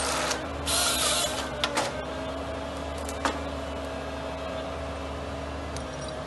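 Vimek 404 SE forestry harvester working a thin stem: a short loud rushing burst from the harvester head about a second in and a few sharp knocks, then the engine and hydraulics running steadily with a faint steady whine as the boom lifts the head.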